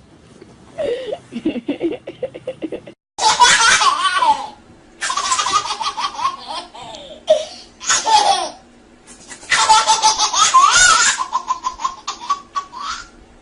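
A baby laughing in repeated belly laughs, high-pitched bursts with short pauses between them, after a lower, rapid stuttering sound in the first couple of seconds.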